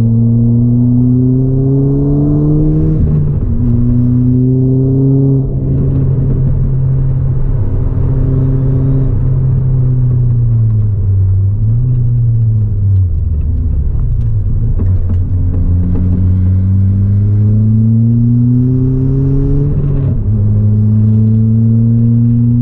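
Ford Fiesta ST180's turbocharged 1.6-litre four-cylinder engine, breathing through a 3-inch aftermarket exhaust and induction kit, heard from inside the cabin under hard driving. Its pitch climbs through the gears with upshifts about 3 and 5 seconds in, falls and wavers in the middle as the car slows, then climbs again to another upshift near the end.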